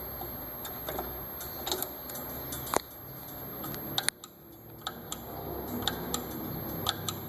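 Work at a band saw blade welder: scattered sharp clicks and light metallic taps over a low steady hum. The hum drops away suddenly a little past the middle and slowly comes back.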